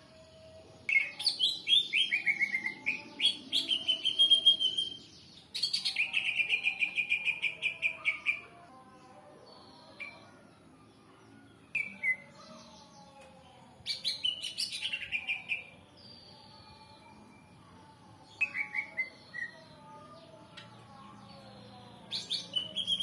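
Green leafbird (cucak ijo) singing in separate phrases of rapid, repeated chirping notes, some falling in pitch, with pauses of a few seconds between phrases.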